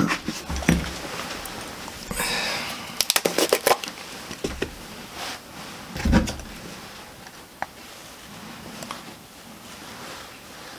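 Small clicks, knocks and rustles of things being handled on a workbench, with a short rustling stretch two to four seconds in and one louder thump about six seconds in.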